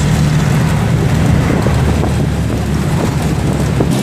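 Engine and road noise of a moving passenger jeepney, heard from inside the open-windowed cabin: a loud, steady low drone with rumbling wind and tyre noise.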